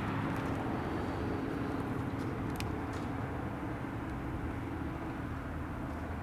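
Steady low rumble heard from inside a jet's intake duct, with a faint steady hum through most of it and a few light clicks.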